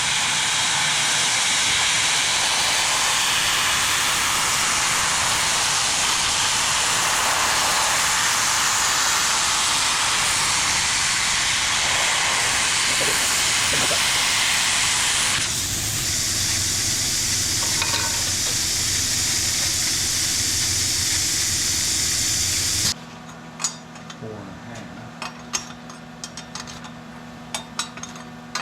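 Welding arc sizzling steadily as work is welded on the positioner. It changes tone about fifteen seconds in and cuts off abruptly near the end, leaving a faint hum and a few light metallic clinks.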